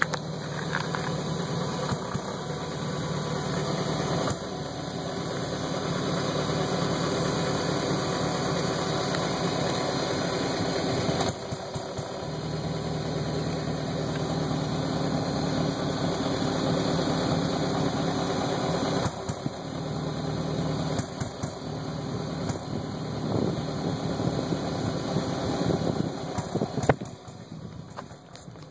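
BMW 540i's 4.4-litre V8 idling with a rough, uneven idle. Its loudness steps up or down a few times and falls off near the end.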